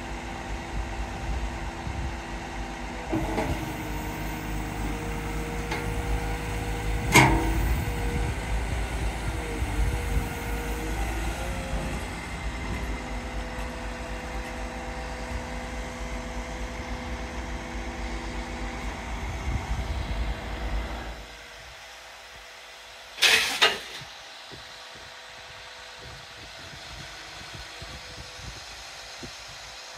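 Volvo EW160E wheeled excavator's diesel engine running steadily, with a few sharp knocks. About 21 seconds in the engine rumble drops away, and two short, loud bursts of noise follow a couple of seconds later.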